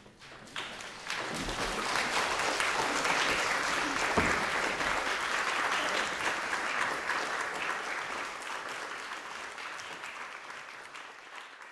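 Audience applauding: the clapping swells within the first second or so, holds, then slowly dies away near the end. A single low thump about four seconds in.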